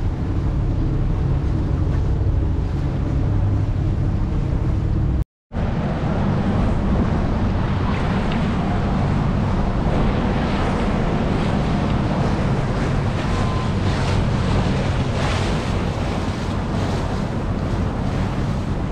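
Wind buffeting the microphone over surf and boat engines running in a rough ocean inlet, a steady rushing roar that drops out to silence for a moment about five seconds in.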